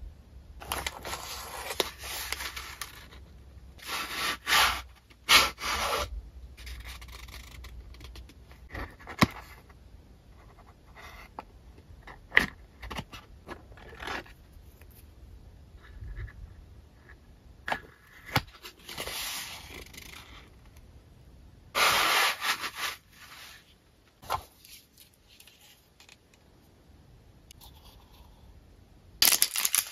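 Close-up handling sounds of unboxing stationery: cardboard and paper packaging rustling and scraping in irregular bursts, with sharp clicks and taps as wood-mounted rubber stamps and small ink-pad tins are picked up and set down.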